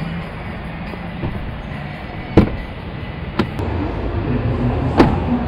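Steady background noise of a busy exhibition hall, broken by a few sharp knocks or clicks, the first about two seconds in and the loudest, the last near the end.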